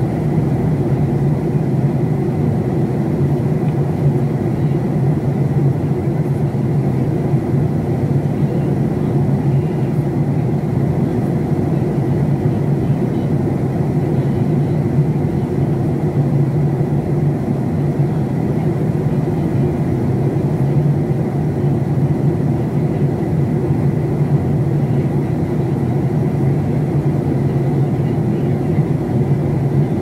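Steady cabin noise inside a Boeing 737-800 at cruise: a constant low drone of airflow and its CFM56 turbofan engines, with a faint, thin, steady whine above it.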